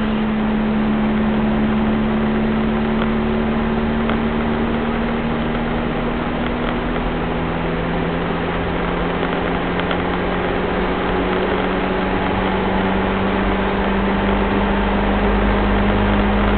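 1983 Mitsubishi Pajero's four-cylinder turbo-diesel engine running steadily while the vehicle drives along, heard from inside the cabin over road and tyre noise. The engine note builds a little near the end.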